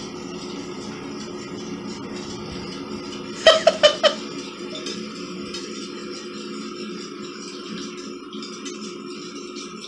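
Four quick ringing taps of a wire whisk against a glass mixing bowl, about a third of the way in, over a steady low hum.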